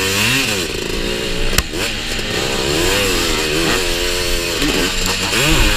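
Honda TRX250R's single-cylinder two-stroke engine at full race effort, its revs rising and falling several times as it accelerates and shifts down the track. A single sharp knock cuts through about one and a half seconds in.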